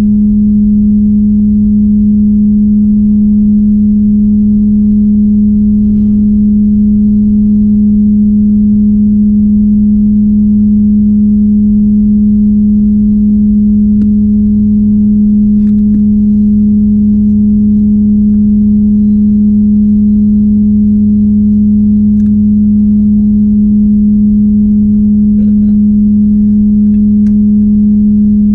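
A loud, steady hum at one low pitch with fainter overtones above it, over a low rumble, with a few faint clicks.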